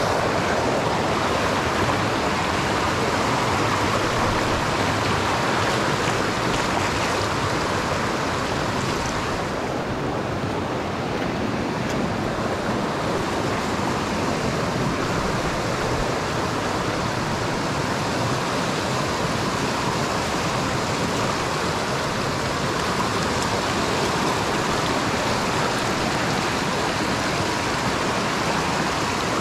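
Creek water rushing, a steady, even rush of flowing water.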